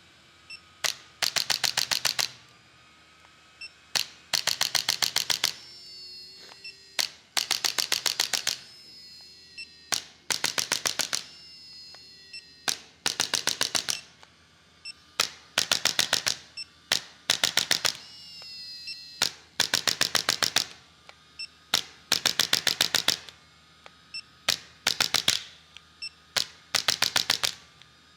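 Chiropractic adjusting instrument firing rapid trains of sharp mechanical clicks, about eight a second, in bursts of a second or so that recur every two to three seconds, each burst often preceded by a single click.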